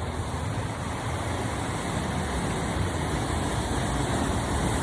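Waterfall's rushing water, a steady even rush of noise with a strong low rumble.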